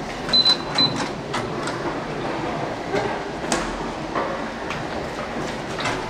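Two short, high electronic beeps from a lift's car-operating panel as a floor button is pressed, followed by scattered light clicks and knocks over a steady background noise.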